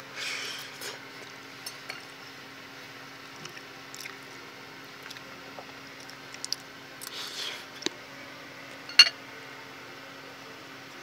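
A metal fork working food on a ceramic plate: short soft wet scrapes and small clicks, with one sharp clink of fork on plate about nine seconds in. A steady low hum runs underneath.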